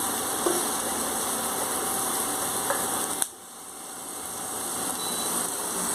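Onions frying in a pot with a steady sizzle, with a few light scrapes of a wooden spatula. The sizzle drops suddenly a little after three seconds and builds back up.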